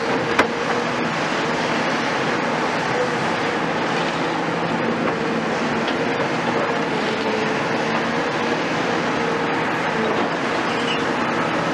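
Caterpillar demolition excavators working rubble: diesel engines running steadily with a constant hum, over a continuous clatter of debris, and one sharp bang about half a second in.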